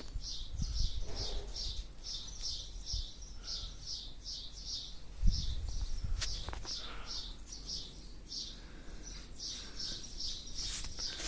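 Small birds chirping over and over, about three high chirps a second, with a single dull thump about five seconds in.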